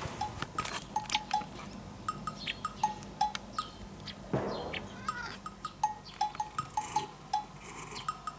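Light, playful background music of short plinking bell-like notes.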